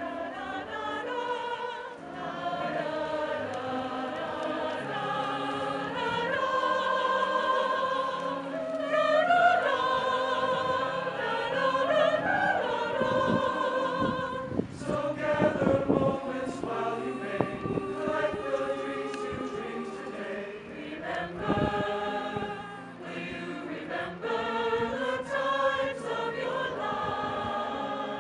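Mixed choir of men and women singing in parts, sustained chords moving from note to note, with a few brief clicks near the middle.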